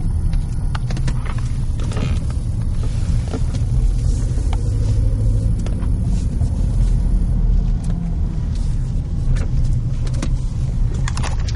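Steady low rumble of a car's engine and road noise inside the cabin while driving.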